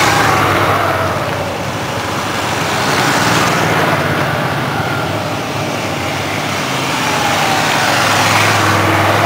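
Small learner motorcycle and scooter engines running, their low hum growing louder near the end as a rider comes closer.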